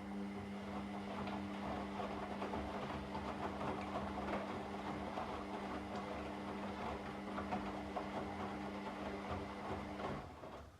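Washing machine running: a steady motor hum with a dense clatter over it, cutting off about ten seconds in.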